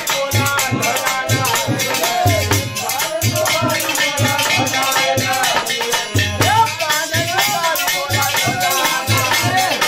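Devotional bhajan played live: a man singing over harmonium, with a dholak drum beating a steady rhythm and a rattling hand percussion keeping fast time.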